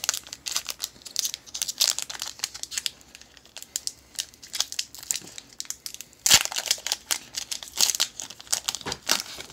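Foil wrapper of an Upper Deck Credentials hockey card pack crinkling and tearing as it is peeled open by hand: a run of quick, irregular crackles, with one louder crackle about six seconds in.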